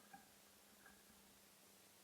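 Near silence: a faint steady low hum with two faint short ticks, one right at the start and one just under a second in.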